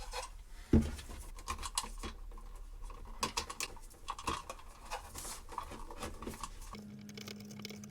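Small clicks and scratches of hands working wires and a wall outlet as it is wired to its cable, with one sharper knock about a second in.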